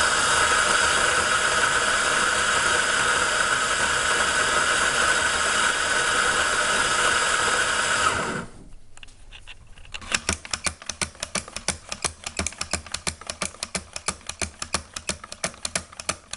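Electric coffee grinder running steadily for about eight seconds, then cutting off abruptly when a plug-in timer set to 8 seconds stops it. After a short pause comes a quick series of sharp clicks, several a second.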